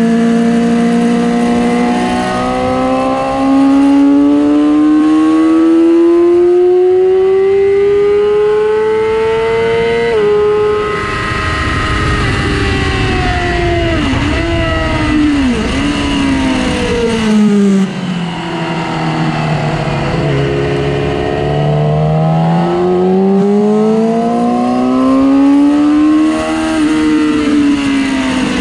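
2006 Yamaha R6's inline-four engine pulling hard, its pitch climbing steadily to a gear change about ten seconds in. It then drops through several quick downshifts to a low point and climbs again toward another shift near the end.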